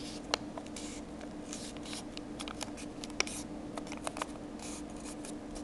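A square sheet of origami paper being folded and creased by hand, giving scattered crinkles, small taps and short rustles.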